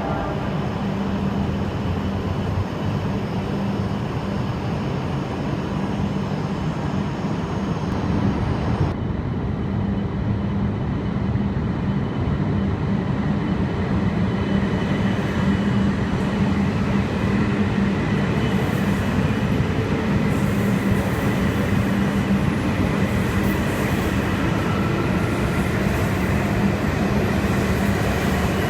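A Tohoku Shinkansen bullet train moving along a station platform: a continuous rushing run over a steady low hum. The sound changes abruptly about nine seconds in and grows a little louder and brighter in the later part.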